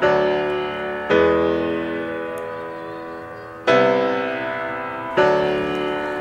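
Background music of slow piano chords, four in all, each struck and left to ring and fade.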